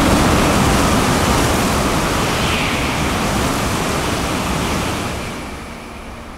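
N700-series Shinkansen bullet train passing through a station at very high speed without stopping: a loud rush of noise that fades away after about five seconds.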